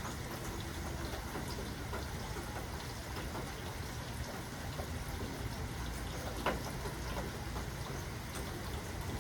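Steady rainfall with individual drops heard as small ticks over an even hiss, and one sharper, louder drop about six and a half seconds in.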